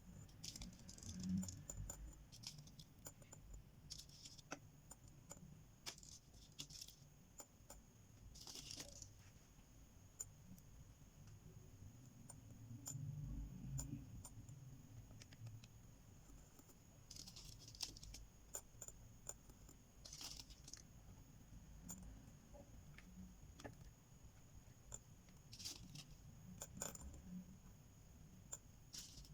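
Small stainless steel beads clicking and clinking faintly against metal as they are handled and set in place, with scattered light clicks and a few brief scrapes.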